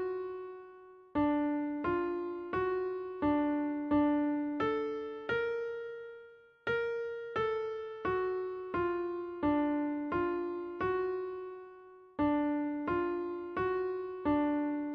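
Background music: a slow melody on a keyboard, played one note at a time, each note struck and left to fade, with brief pauses between phrases.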